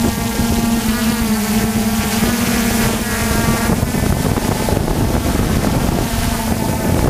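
DJI F450 quadcopter's brushless motors and propellers buzzing steadily, heard from the GoPro mounted on the drone, with wind rushing over the microphone. The pitch of the buzz shifts about four seconds in and again near the end as the throttle changes.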